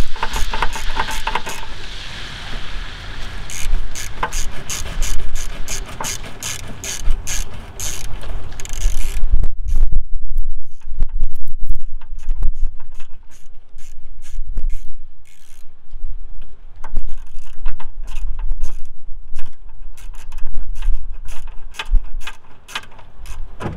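Hand socket ratchet clicking in quick runs as it is swung back and forth, driving a headlight mounting bolt in. The clicks are louder for the first ten seconds or so and fainter after that.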